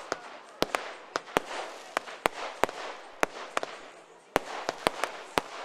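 Fireworks going off: a run of sharp, irregular bangs, some in quick pairs, over a steady crackle of burning stars. The bangs pause briefly about four seconds in, then resume.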